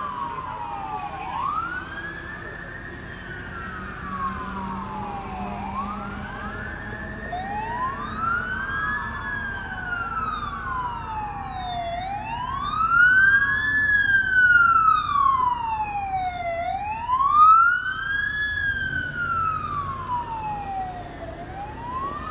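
Fire apparatus siren in wail mode, rising and falling about every four and a half seconds. A second siren wail overlaps it for the first several seconds.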